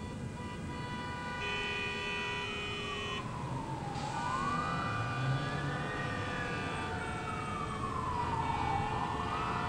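Emergency vehicle siren wailing, sliding slowly down and up in pitch about every five seconds, over low city traffic rumble.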